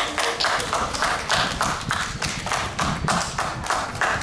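An audience clapping in unison in a steady rhythm, about three claps a second.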